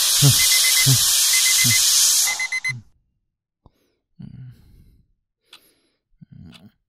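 Alarm clock ringing loud and fast, with a rapid beeping over a rattling ring and a pulsing beat about three times a second, cutting off suddenly a little under three seconds in. Then a waking man makes two faint low sleepy groans.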